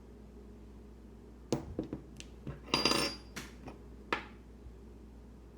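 Small metal parts of a disassembled Sargent Keso dimple lock clicking and clinking as they are handled and set down: about half a dozen light taps, with one piece ringing briefly about three seconds in.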